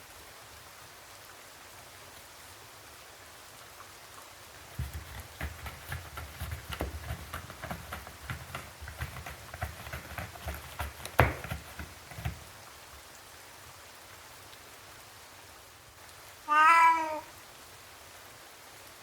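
Steady rain hiss, with a stretch of irregular soft taps and thumps in the middle and one sharper knock. Near the end a domestic cat gives a single short meow that rises and falls in pitch.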